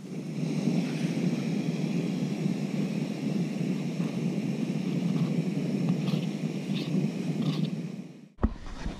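Jetboil backpacking stove's gas burner running at full flame under the pot, a steady rushing hiss that comes up just after the start, reheating the pasta water back to the boil. It cuts off suddenly near the end.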